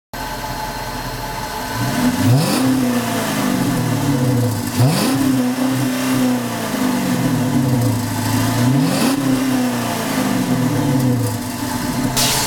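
Dodge Charger's engine and exhaust idling, then revved three times. Each rev climbs quickly and falls slowly back toward idle.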